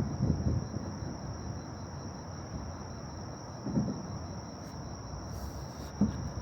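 Insects, like crickets, trilling steadily on one high note over a low outdoor rumble, with a few soft low thumps.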